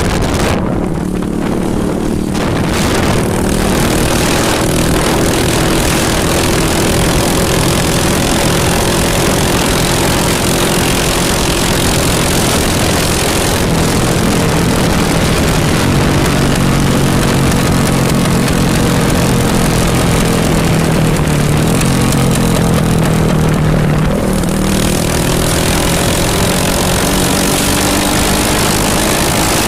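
Honda CG 150 Titan KS motorcycle's single-cylinder four-stroke engine running loud through a bare exhaust pipe with no muffler. Its pitch rises and falls slowly, with a brief drop about 24 seconds in.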